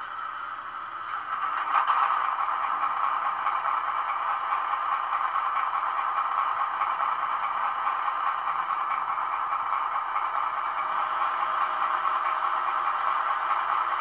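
Digital sound decoder in a model Class 42 Warship diesel locomotive, playing its twin-engine start-up sound through a small sugarcube speaker. A diesel engine starts about a second and a half in and settles into a steady clattering idle, thin and midrange with little bass.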